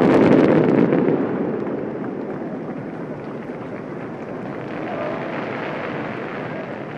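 Distant volley of large aerial firework shells bursting together: a cluster of sharp reports in the first second, then a long rolling rumble of echo that slowly fades.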